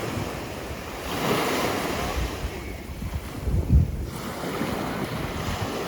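Ocean surf washing up the beach, swelling about a second in, with wind buffeting the microphone in low rumbles.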